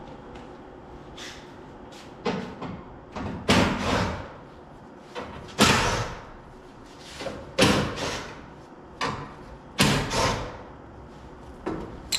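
A dozen or so irregular metallic clanks and knocks, each ringing briefly, as car body parts and hand tools are handled.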